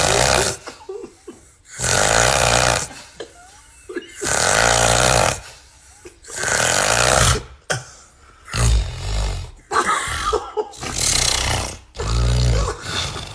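Loud snoring, one long rasping snore about every two seconds. About eight seconds in, the snores become shorter and come closer together, with a more buzzing, pitched rattle.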